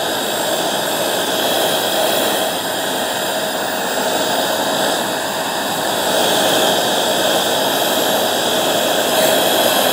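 Bissell 3-in-1 stick vacuum, used as a hand vacuum, running steadily with a whirring motor whine as its nozzle is worked over a thick shag rug; slightly louder from about six seconds in.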